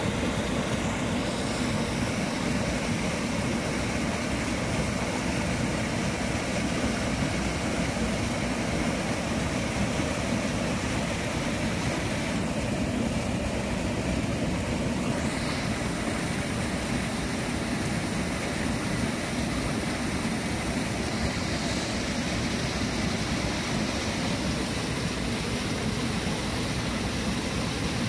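Steady rush of a rain-swollen stream, a continuous even hiss of flowing water with no distinct splashes or knocks.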